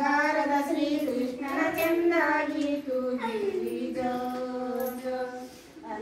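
A single voice singing a slow, unaccompanied song with long drawn-out notes that bend gently in pitch; the singing fades down just before the end.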